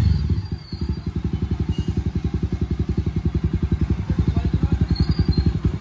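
Jawa Bobber's single-cylinder engine breathing through a newly fitted loud aftermarket exhaust. It drops back from a rev in the first moment, then settles into a steady idle: an even, rapid beat of exhaust pulses.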